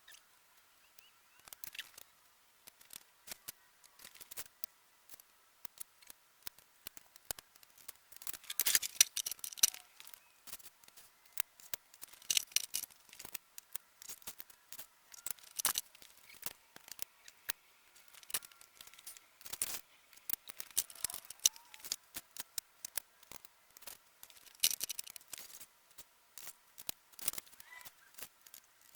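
Metal sockets clicking and clinking as they are handled and set onto socket organizer trays: scattered sharp clicks, with a few short bursts of denser clattering.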